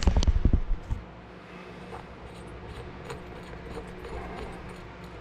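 Ratchet wrench clicking as a spark plug is run into the Honda CR500 engine's cylinder head: a fast, loud run of clicks lasting about a second, then only a low steady hum.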